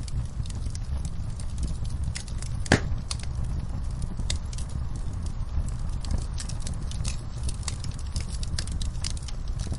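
Wood fire crackling, with scattered sharp pops (the loudest a little under three seconds in), over a steady low rumble and the hiss of rain.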